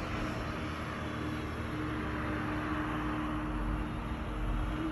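Strong snowstorm wind blowing, buffeting the microphone with a low rumble that swells near the end, over a faint steady hum.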